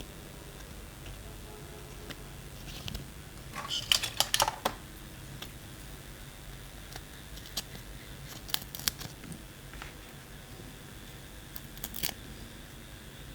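Scattered clicks and rustles of a small plastic gadget and its packaging being handled, with a dense run of sharp clicks about four seconds in and another cluster near the end.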